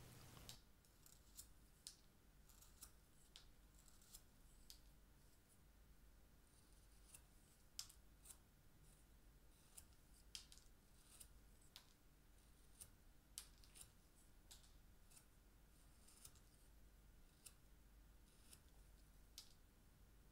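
Faint, short cuts of a carving knife shaving small chips off a wooden ice-lolly top, coming irregularly about once every half second to a second.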